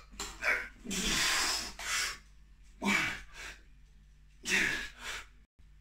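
A man breathing hard under exertion during heavy dumbbell shoulder presses: about four forceful breaths, with one long blowing exhale about a second in and shorter gasping ones after.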